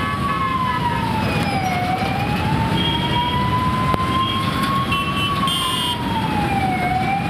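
Ambulance siren wailing slowly, its pitch sinking and climbing back in a cycle of about five seconds, over the low noise of jammed traffic. A few short higher beeps sound in the middle.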